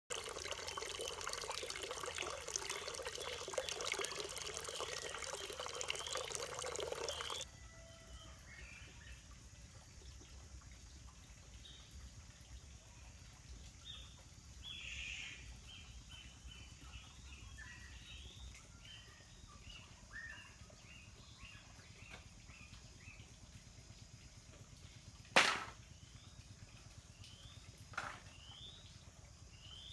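A stream of water pours from a bamboo spout into a full clay pot, splashing steadily for about seven seconds before cutting off. Birds then chirp faintly in the woods, and two sharp knocks come near the end.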